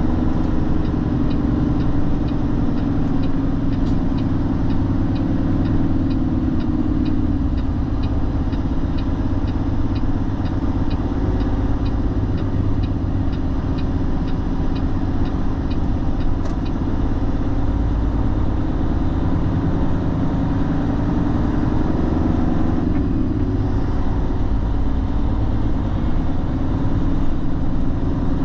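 Steady drone of a truck's engine running, with a light, even ticking at about two or three a second through the first half that stops about sixteen seconds in.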